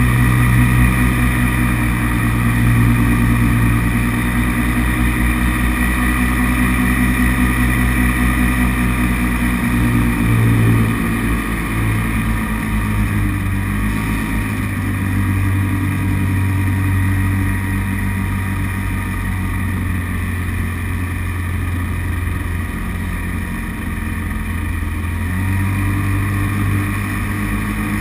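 Paramotor engine running steadily in flight; its pitch and level drop a little about eleven seconds in, as if throttled back.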